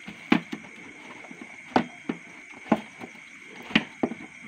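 Sharp plastic clicks and knocks, about six of them spaced roughly a second apart, as a cut plastic-bottle funnel lid is pressed and tightened into the mouth of a plastic jerrycan crab trap.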